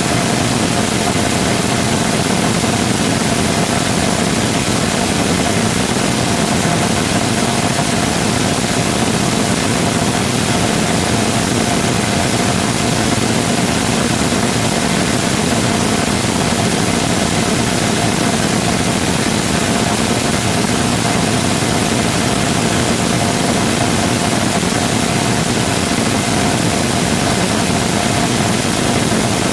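Full-scale 3D-printed rotating detonation rocket engine combustor in a sustained hot-fire: a loud, unbroken rushing roar with a faint steady whine running through it.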